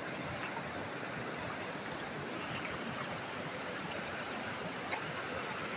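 River water flowing, a steady rushing hiss, with a faint tap about five seconds in.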